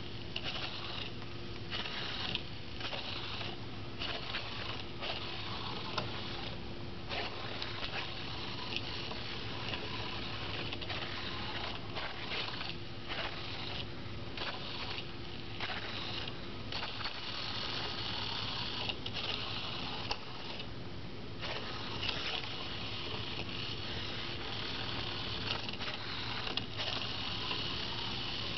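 Pololu 3pi robot's small geared drive motors whirring, cutting out and starting again many times as the robot stops, turns and centres itself on the line.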